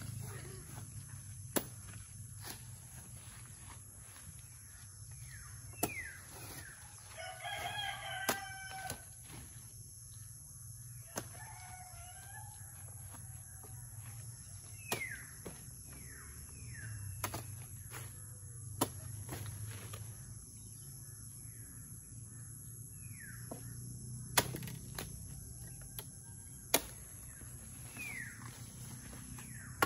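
A rooster crows about seven seconds in, and crows again more faintly a few seconds later, amid short falling chirps of other birds. Sharp knocks sound now and then, the loudest two near the end.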